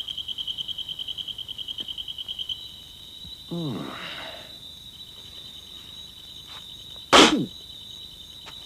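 Animated-film sound effects: a fast, pulsing high trill like an insect over a steady high tone, stopping about a third of the way in. A sound slides down in pitch about halfway through, and a louder, sharp downward swoop comes near the end.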